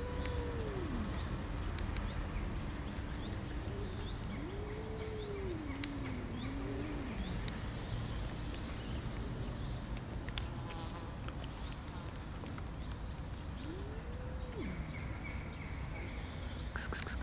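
An angry cat's low, drawn-out warning yowls, each rising and falling in pitch: one trailing off at the start, a longer wavering one from about four to seven seconds in, and a shorter one near fourteen seconds. Faint bird chirps and a steady low background rumble run underneath.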